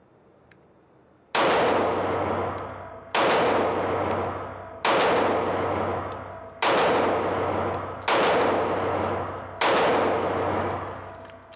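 Six shots from a Taurus G2c 9mm pistol, fired at a steady pace about one and a half to two seconds apart. Each shot is followed by a long echoing tail that fades before the next.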